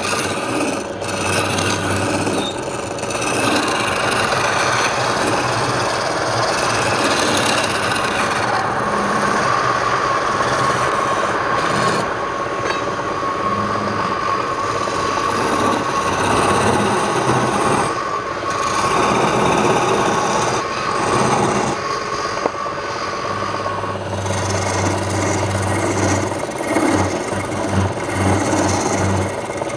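Wood lathe running with a steady hum, and continuous rasping of wood being worked on the spinning piece.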